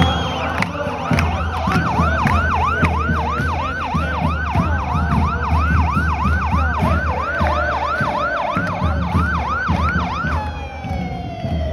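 A vehicle siren in a fast yelp, its pitch rising again and again two to three times a second, then winding down in a falling tone near the end.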